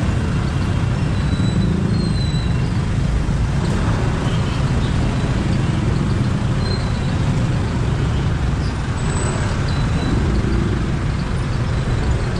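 Slow, crowded city traffic heard up close: the low running of a Kymco scooter's engine mixed with the diesel engines of jeepneys and other vehicles crawling alongside. It is a steady mix with no single event standing out.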